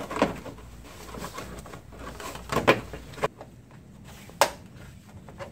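Plastic air inlet cover of a 2003 Honda Accord being fitted back into place by hand: a handful of light plastic clicks and knocks, the sharpest about four and a half seconds in.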